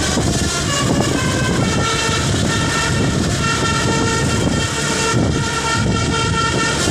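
Indonesian 'telolet basuri' bus air horn playing a tune of short held notes, stepping from pitch to pitch, over a low rumble.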